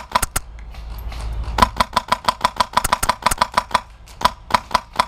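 HPA-powered airsoft rifle (VFC Avalon) firing fast semi-automatic shots, each a sharp crack, about six or seven a second. The shooting comes in strings, with a pause of about a second near the start and a brief one near four seconds in.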